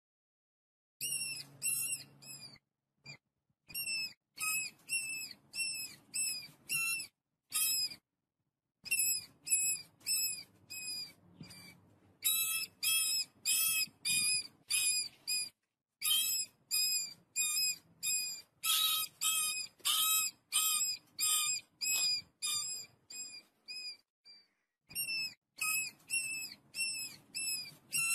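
Mice squeaking: short, high, bending squeaks repeated about two to three times a second in runs broken by brief pauses.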